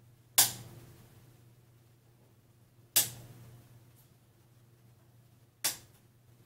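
Wire cutters snipping diode leads flush off a circuit board: three sharp snips about two and a half seconds apart.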